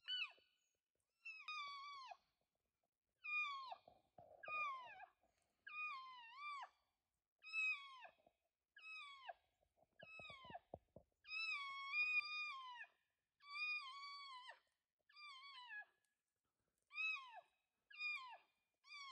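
Elk mewing and chirping: a string of about fourteen short, high, falling calls, some bending down and back up, coming every second or so. A few soft clicks sound about ten seconds in.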